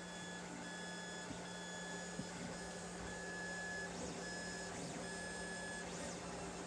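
Lulzbot TAZ 5 3D printer printing: its stepper motors whine at a steady pitch in short stretches, stopping and starting as the print head and bed move, over a steady low hum.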